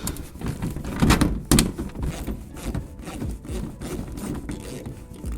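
Irregular clicks and knocks of a socket wrench and metal bolts being handled while 10 mm bolts are undone under a car's plastic bumper, with two louder knocks about a second and a second and a half in.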